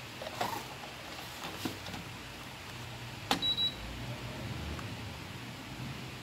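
Plastic ink cartridge pushed into a duplicator's ink holder and twisted to lock: a few soft knocks in the first two seconds, then a sharp click a little past three seconds with a brief high beep right after, over a low steady hum.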